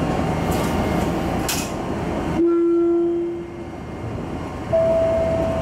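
Electric commuter train running over a single-track river bridge, heard from the driver's cab, with a steady wheel-and-rail rumble. About halfway in, the rumble drops away sharply and a single steady low tone sounds for about a second. Near the end a higher steady tone begins.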